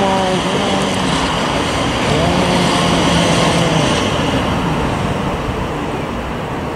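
Electric multiple-unit passenger train running past on the tracks close below: a steady rush of wheel and running noise that eases after about four seconds as the train draws away. A held tone sounds briefly near the start and again for about a second and a half from about two seconds in.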